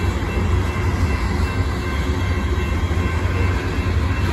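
Freight train of grain covered hopper cars rolling past, a steady low rumble of wheels on the rails.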